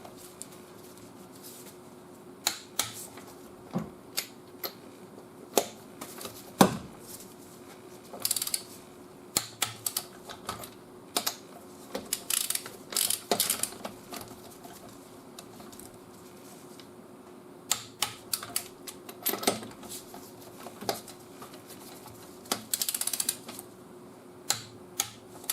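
Click-type 1/2-inch torque wrench tightening lug nuts to 50 ft-lb: quick runs of ratchet clicks as the handle is swung, and sharp single clicks as the wrench breaks at the set torque. A faint steady hum lies under it.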